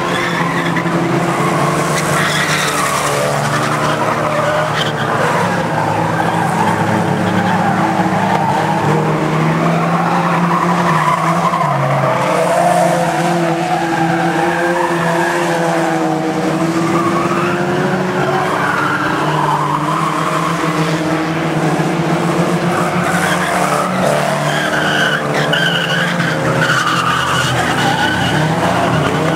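A pack of banger-racing cars lapping an oval track, several engines running hard together and revving up and down as the cars go round, with tyre squeal at times.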